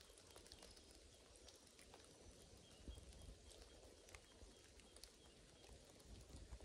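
Faint ambience inside a rain cloud: a low wind rumble with scattered small drip-like ticks, and a faint thin high call about two to three seconds in.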